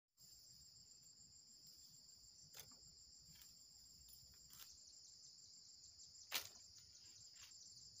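Faint, steady, high-pitched insect trill, with a few soft clicks and one louder tap about six seconds in.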